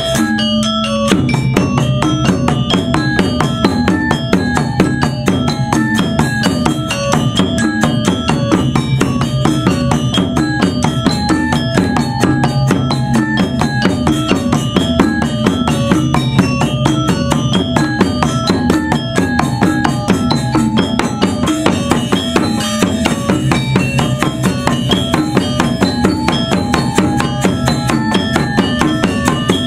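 Balinese gamelan: bronze-keyed gangsa metallophones struck with mallets in fast, dense interlocking patterns, driven by kendang two-headed drums played with hand and stick.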